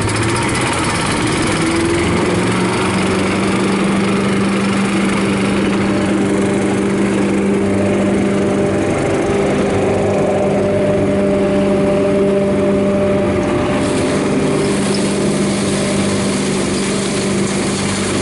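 Vanguard 13 hp petrol engine of a Terra-Vac Colt paddock vacuum running steadily, driving the suction through the wander hose. Its pitch rises slightly about two seconds in.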